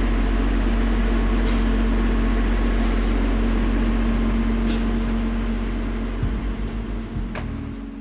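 Steady mechanical drone of a running machine with a deep low hum and a steady tone above it, with a few light clicks. It fades out over the last two seconds.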